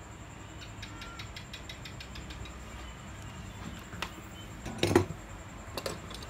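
Small clicks and knocks from hands working fine jumper wire and tools on a TV circuit board: a quick run of light ticks, then a louder knock about five seconds in and a smaller one a second later.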